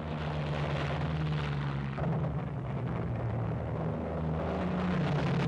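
Propeller aircraft engines running at high power, a steady drone, with an abrupt shift in the sound about two seconds in.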